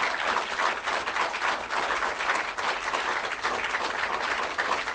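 A crowd applauding steadily, many hands clapping at once.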